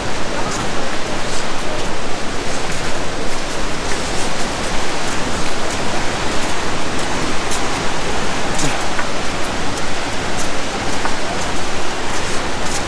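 The Mandakini River rushing: a loud, steady wash of fast-flowing water, with a few faint clicks on top.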